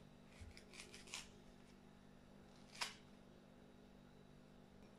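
Faint strokes of a small paring knife cutting through a firm, crisp peach held in the hand: a few soft scrapes in the first second, then one sharper cut about three seconds in, over a steady low hum.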